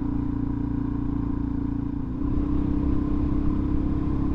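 Suzuki DR-Z400 supermoto's single-cylinder four-stroke engine running steadily on the move, under wind rumble on the microphone. About two seconds in, the low rumble gets rougher and a little louder.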